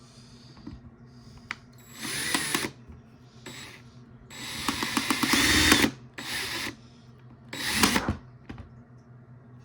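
Power drill running in four short bursts, the longest and loudest about a second and a half near the middle, with a few light clicks in between.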